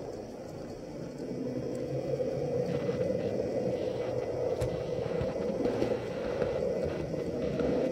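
HO-scale model train running along the track, heard from a camera riding on it: a steady motor hum with wheel rumble, growing louder over the first two seconds, with a few faint clicks.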